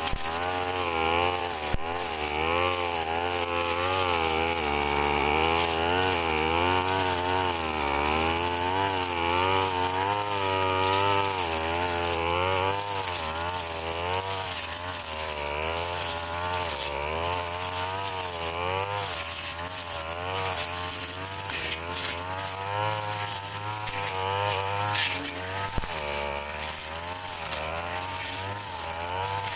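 Brush cutter engine running while clearing grass, its pitch rising and falling continually as the throttle and cutting load change.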